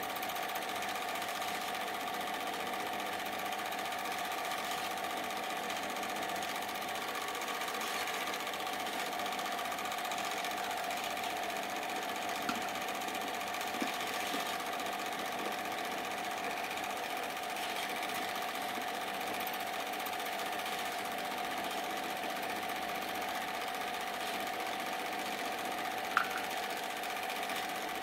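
Super 8 film projector running: a steady mechanical whirr and chatter from its motor and film advance, with a few small clicks around the middle and one near the end.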